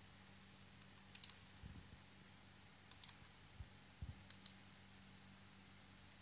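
Computer mouse buttons clicking in quick double clicks, three pairs spread over a few seconds. Under them is a faint steady electrical hum and a few soft low bumps.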